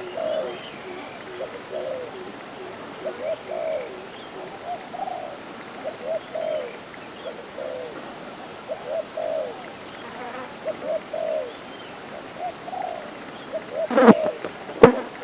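Doves cooing over and over, short low arched calls following one another, over a steady high-pitched whine. Near the end come two sharp knocks about a second apart.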